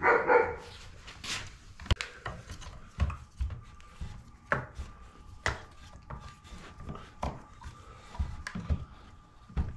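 Irregular knocks, clicks and rubbing from a Stihl MS462 chainsaw powerhead being handled and turned on a wooden workbench while its lower anti-vibration suspension bushing is worked into place.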